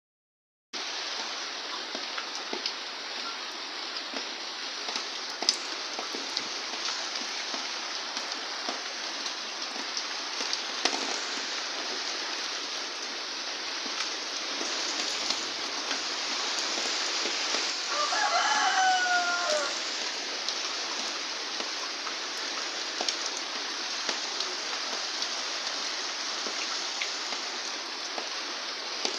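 Steady rain falling, an even hiss with scattered drop ticks. About eighteen seconds in, a rooster crows once, the loudest sound in the stretch.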